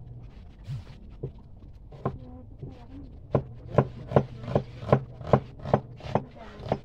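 Cleaver chopping red onion on a wooden cutting board: a few scattered knocks, then a steady run of about nine sharp chops, roughly two and a half a second, in the second half.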